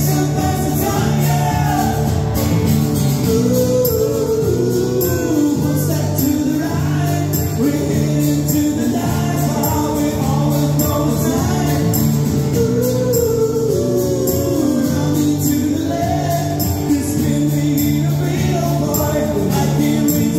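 Live busking duo playing amplified acoustic and electric guitars with a steady drum beat, a man singing a gliding melody over them.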